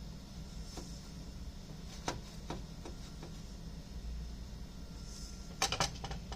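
A kitchen utensil tapping lightly against a dish as a baked potato is cut and scooped, with a short clatter of several quick clicks near the end, over a steady low hum.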